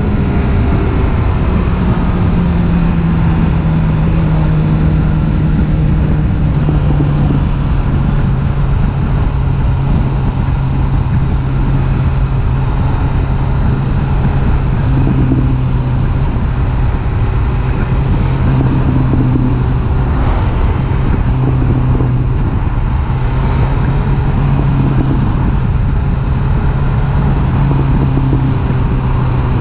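BMW S1000R's inline-four engine running at a steady cruising note at highway speed, with wind rushing over the microphone. The engine note sinks a little in the first few seconds, then holds steady.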